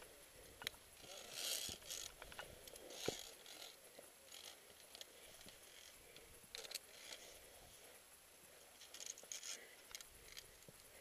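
Faint scuffs and scrapes of a climber's boots on rock, with light clicks of climbing gear, scattered unevenly as the climber moves along the ridge.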